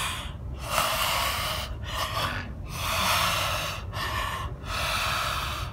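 A woman taking exaggerated, noisy deep breaths through a wide-open mouth, gulping in the sea air: three long, rushing breaths with shorter ones between them.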